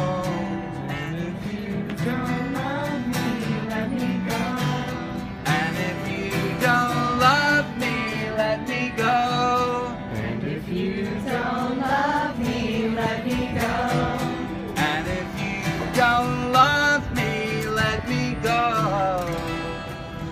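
Acoustic guitar strummed while a man sings over it.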